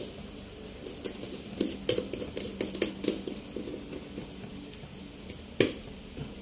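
Screw lid being twisted onto a glass jar of salt: a run of small clicks and scrapes, then one sharper click near the end as the lid is closed.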